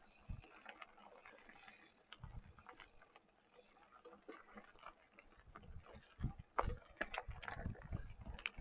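Mountain bike coasting on a dirt trail: the rear hub's freewheel ticking, with scattered clicks and low thumps from the ride, heaviest about two seconds in and over the last few seconds.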